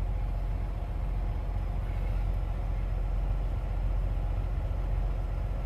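Semi truck's diesel engine running steadily, a low even drone with no change in pitch.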